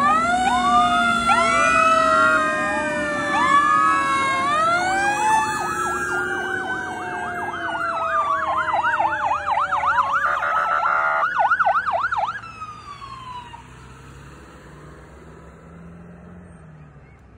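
Several emergency-vehicle sirens sounding at once, their wailing tones rising and falling over one another. About eight seconds in, one switches to a fast yelp, and the sirens cut off about twelve seconds in.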